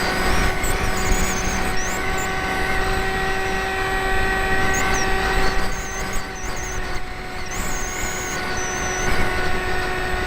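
Electric motor and propeller of a foam RC B-2 model running as a steady, even-pitched whine, heard from a camera on board, with wind rushing over the airframe.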